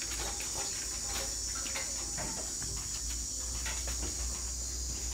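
Steady high-pitched insect drone, with scattered light knocks and rustles from the rice sacks and the truck bed as a man climbs onto the load.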